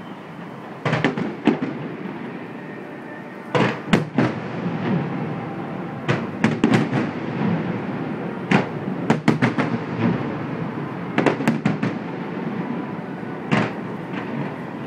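Fireworks display: aerial shells bursting with sharp bangs at irregular intervals, several in quick clusters, over a continuous rumble of the show.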